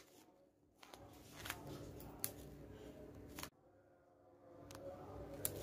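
Faint handling of a clear nano-tape balloon: several sharp clicks of the tape plastic over a low hiss.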